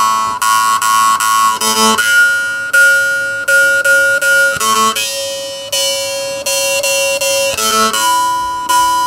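Handmade Shaun Jones jaw harp being played with repeated finger plucks of the reed: a steady drone over which a strong overtone jumps between pitches every second or two, picking out a melody.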